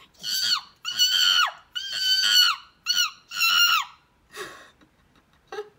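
A woman's vocal imitation of a chimpanzee: five high-pitched shrieks in quick succession, each dropping in pitch at its end, the fourth very short.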